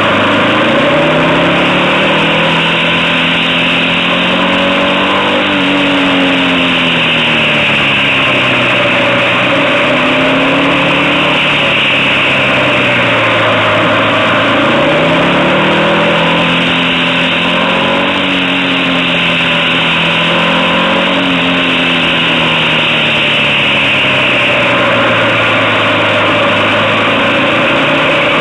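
Motorcycle engine heard from on the bike, its revs rising and falling again and again as it accelerates out of bends and eases off into them, over a steady rush of wind and road noise.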